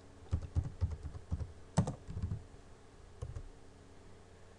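Computer keyboard typing: irregular keystrokes as numbers are entered into fields, with one sharper keystroke about two seconds in, the presses thinning out in the second half.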